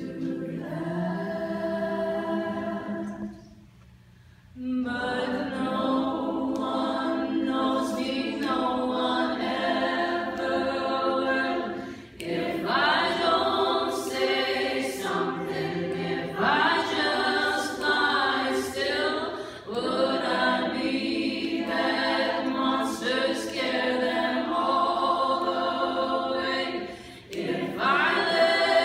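Women's choir singing a cappella, with a female solo voice on microphone leading; the singing breaks off briefly about four seconds in, then resumes in long held phrases.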